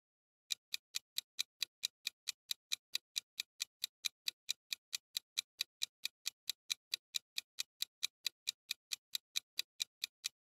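Clock-ticking sound effect for a quiz countdown timer: short, even ticks at about four to five a second, starting about half a second in and counting down the time left to answer.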